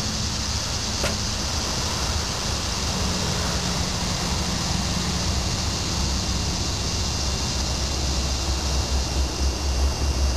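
Steady hiss with a low rumble of wind on the microphone, turning gustier near the end, and one faint click about a second in.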